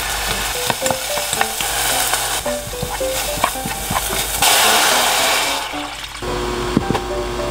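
Green onion and chili powder sizzling in oil in a stainless steel pot, stirred with a wooden spoon that clicks lightly against the pot. About four and a half seconds in, water is poured into the hot pot with a loud rush of hissing for about a second, then it settles to a quieter bubbling.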